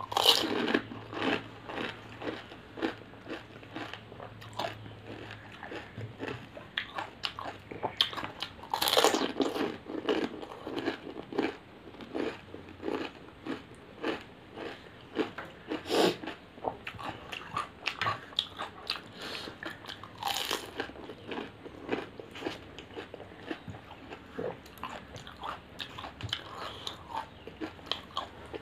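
Crisp fried pani puri shells crunching as a person bites into them whole and chews with mouth close to the microphone: a steady run of short crackles with a few louder crunches along the way.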